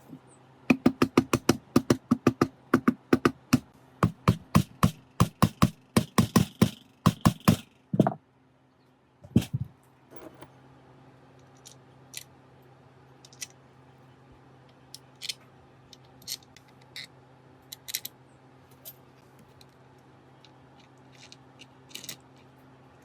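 A fast, regular run of sharp knocks, about four or five a second, lasting some seven seconds, then two single knocks and a string of scattered light clicks and taps, over a steady low hum.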